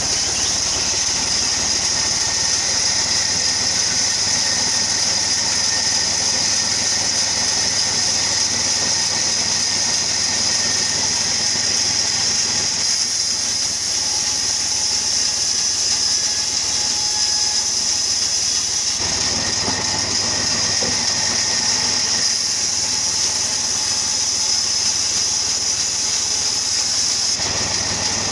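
Sawmill wood-cutting machine running steadily: a constant mechanical drone with a strong high-pitched hiss, its tone shifting slightly a few times.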